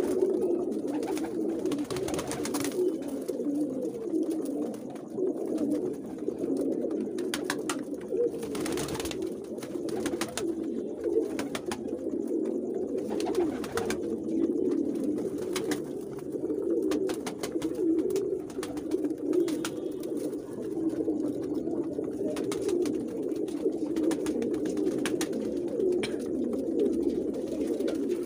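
A flock of domestic high-flyer pigeons cooing together in a loft: a steady, unbroken chorus of overlapping low coos.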